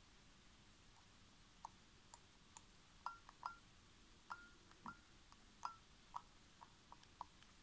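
Faint, irregular small metallic clicks and ticks, about fifteen in all, some with a short high ping. A fingertip in a rubber finger cot is pressing and releasing a wire spring and lever in an Epos wristwatch movement.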